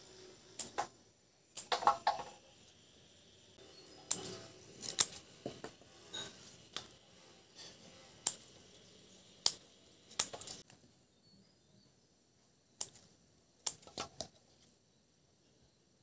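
Scissors snipping through water spinach stems: sharp separate snips at uneven intervals, in short runs with pauses between them.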